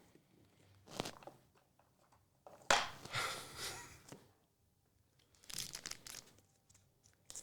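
Foil wrapper of a Magic: The Gathering collector booster pack being torn open and crinkled: a short rip about a second in, a longer tearing and crinkling stretch around three seconds in, and more crinkling near the end.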